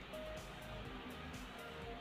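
Background music: a melody of short held notes over a steady low accompaniment.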